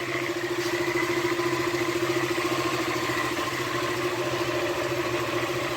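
KTM motorcycle engine idling steadily, with a noise coming from the magneto cover; the noise is traced to loose screws on that cover.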